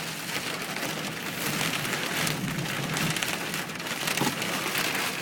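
Steady rain falling on a car's roof and windshield, heard from inside the car as a dense patter of drop hits.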